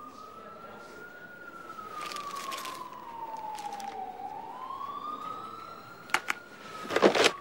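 A siren wailing slowly, its pitch rising and falling over about five seconds per cycle. Two sharp clicks come near the end, followed by a brief, louder burst of noise.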